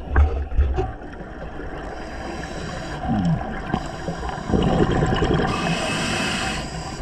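Underwater sound of a scuba diver breathing through a regulator: a crackling rush of exhaled bubbles about four and a half seconds in, then a hiss of inhaled air lasting about a second. A few dull knocks at the start.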